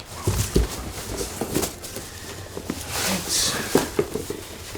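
A small box being handled on a table: scattered light knocks and taps, with a brief rustle or scrape about three seconds in.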